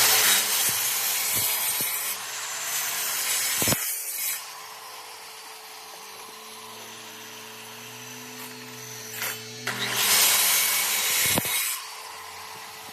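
Power tool working wood, loud for the first couple of seconds and again about ten seconds in, running quieter with a steady hum in between.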